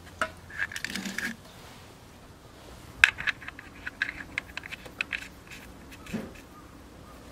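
Light metallic clicks and clinks from parts being handled on a motorcycle engine during an oil change. There is a short cluster about a second in, then a run of quick clicks from about three to five seconds in.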